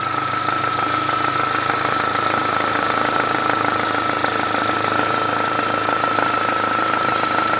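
Engine idling steadily with a constant high-pitched whine over its fast, even running, the noise the owner calls a bad sound.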